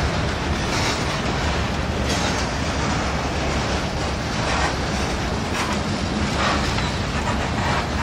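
Freight cars rolling past: a steady rumble and clatter of steel wheels on the rails, with brief brighter swells every second or so as the covered hoppers and a centerbeam lumber flatcar go by.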